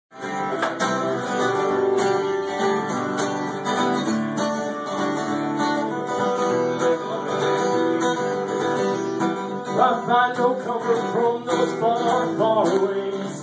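Acoustic guitar strummed steadily, playing a song's instrumental intro.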